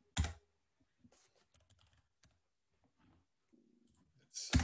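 Computer keyboard clicks. A sharp one comes just after the start, faint scattered taps follow, and a louder one comes near the end.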